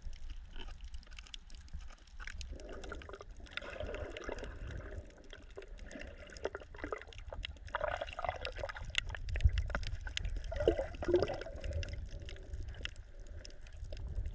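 Water sloshing and dripping, with many irregular small splashes and clicks over a low steady rumble.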